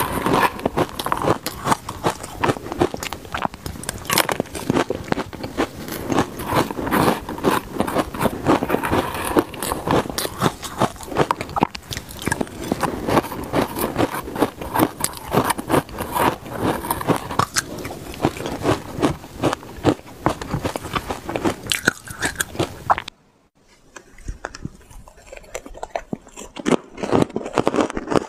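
Close-miked biting and crunching of shaved ice heavily coated in purple sweet potato powder, a dense run of crisp crunches and chewing. The crunching drops away briefly near the end, then resumes.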